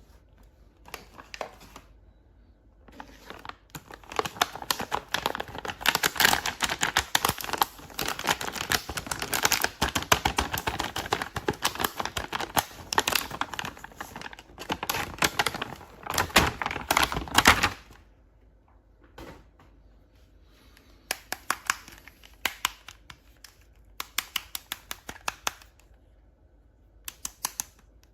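Plastic toy packaging being crinkled and torn open with a dense crackling for about fifteen seconds, then stopping abruptly. After a short pause, scattered sharp clicks of plastic pieces being handled.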